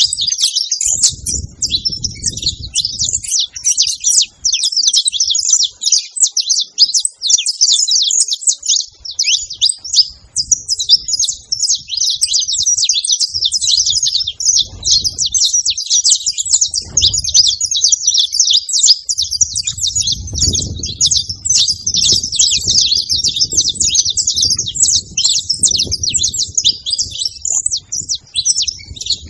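Saffron finch chirping rapidly and nonstop, a dense run of high, quick notes with hardly a pause. A low rumble comes and goes underneath at times.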